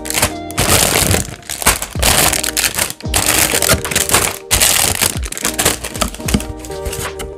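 Clear plastic bags around model-kit runners crinkling loudly in repeated bursts as they are handled and lifted out of the box. The crinkling eases off near the end. Background music plays throughout.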